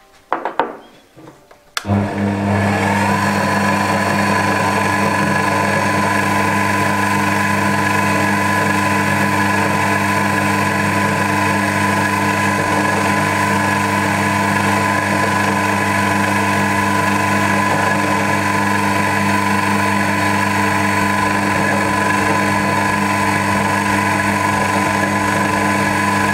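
Small benchtop metal lathe: a few clatters as the chuck is handled, then about two seconds in the motor starts with a whine that rises as it spins up and then runs steadily. An engine valve spins in the chuck while an abrasive cleaning fleece is held against it to polish it.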